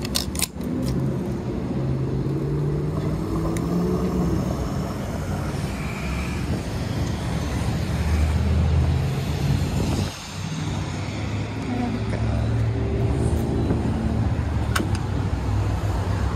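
Steady low rumble of vehicle engines and road traffic, with a sharp click about half a second in and a couple of lighter clicks later.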